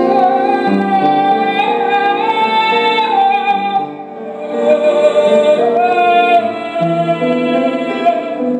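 A woman singing long, slightly wavering held notes over piano chords, a slow original song with a Japanese traditional flavour. The first note is held for about four seconds, and a second, lower note follows.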